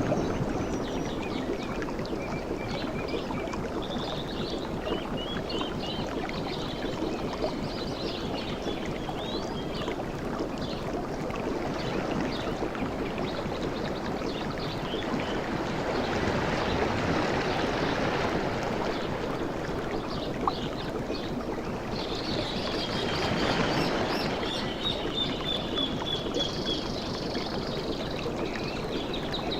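Waves washing onto a beach, a steady wash that swells twice, with birds chirping and calling over it.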